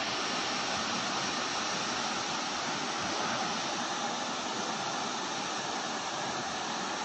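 Floodwater rushing: a steady, dense wash of noise that holds level throughout.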